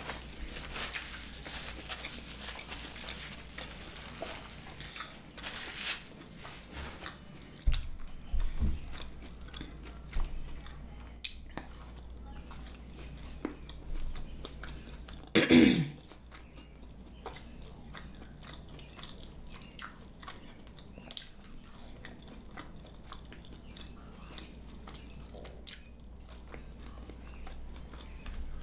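Close-miked chewing and biting of fried food, mostly french fries, with soft crunches and mouth clicks. About halfway through comes a short hum of the voice, the loudest moment, and a couple of dull knocks come a little before it.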